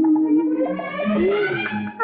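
Hindi film song music: a single held melodic line that slides up and bends between sung phrases, over a low accompaniment.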